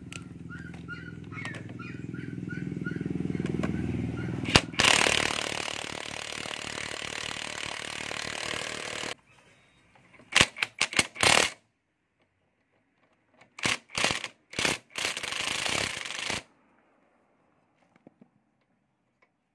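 Power impact wrench tightening the front axle nut. It spins with a rising hum for about four seconds, then hammers steadily for about four seconds and stops abruptly. Two groups of short trigger-pulled hammering bursts follow.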